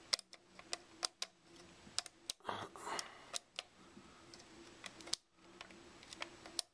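Plastic push-down pegs on a mechanical 24-hour timer dial being pressed in one after another with a fingertip, each 15-minute peg clicking. The clicks come in a quick, uneven run, about two or three a second.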